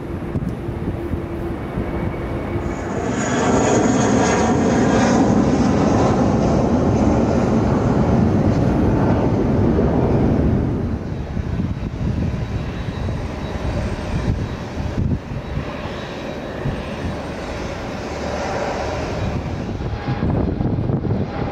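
Jet engines of a Boeing 787-10 airliner at takeoff thrust through the takeoff roll and liftoff. The rumble swells a few seconds in, stays at its loudest until about halfway, then drops back and rises again near the end.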